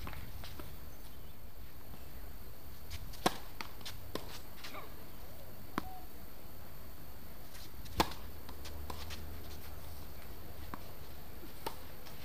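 A few sharp pops of a tennis ball being struck or bounced on a hard court, the two loudest about three and eight seconds in, with fainter ones between, over a steady low outdoor rumble.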